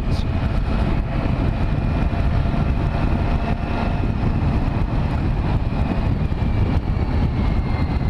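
Triumph motorcycle engine running at a steady cruise, mixed with a constant rush of wind and road noise over the microphone.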